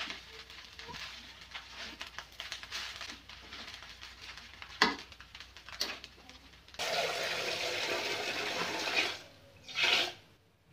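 A metal spatula stirs and scrapes fried rice in a metal wok, with a sharp clank about five seconds in. About seven seconds in the sound cuts to water running steadily from a tap into a pot at a sink for a couple of seconds, then a short splash.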